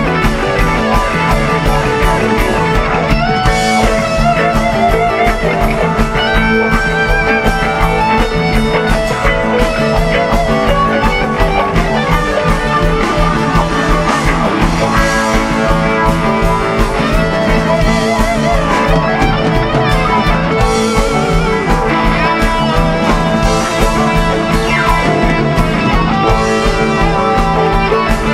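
Live rock band jamming instrumentally: electric guitar lead lines with vibrato over bass guitar and a drum kit.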